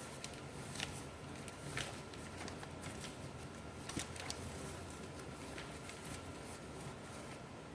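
Light rustling and scattered small clicks as packaging and loose parts are handled and sorted, over a faint steady hum.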